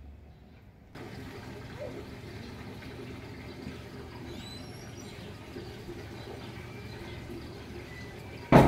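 Steady outdoor background noise with a few faint high bird chirps, then a sudden loud short sound near the end.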